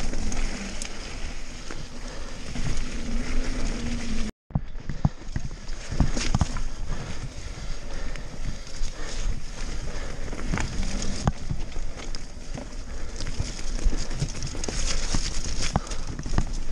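Nukeproof Mega mountain bike clattering down a rough, wet dirt trail: tyres rolling over dirt and roots, with a steady stream of knocks and rattles from the bike. The sound cuts out completely for a split second about four seconds in.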